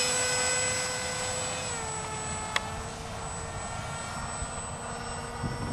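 Electric RC plane's brushless outrunner motor (EMax CF2805 2800kv) spinning a GWS 5043 propeller: a steady high whine in flight, its pitch dipping slightly about two seconds in, fading as the plane flies away. A single sharp click about halfway through.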